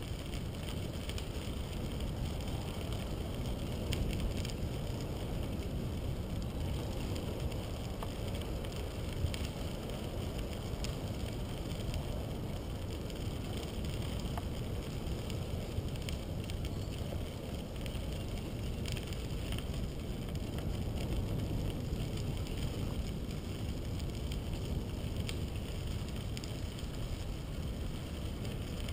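Bicycle tyres rolling on a crushed-stone trail, with wind noise on the microphone: a steady low rumble and a few faint ticks.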